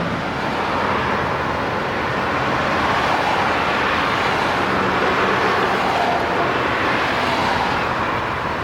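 Steady rushing noise of a passing vehicle, swelling slightly in the middle and beginning to fade near the end.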